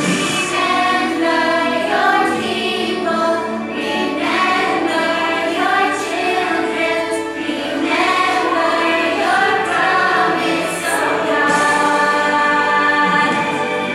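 A group of children singing a Sunday school song together, with music playing.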